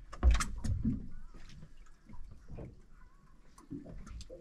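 A few sharp splashes and knocks in the first second, then light dripping and scattered small ticks: a hooked pollock brought up at the side of a small boat and lifted out of the water.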